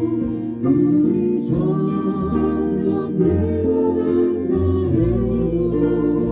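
Live song performance: held singing voices over instrumental accompaniment, with no clear words.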